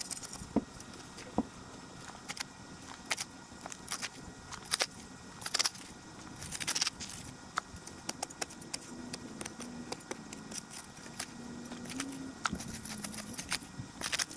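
Irregular clinks and scrapes of a garden tool working gravelly soil: scattered sharp knocks with a few longer scrapes in the middle.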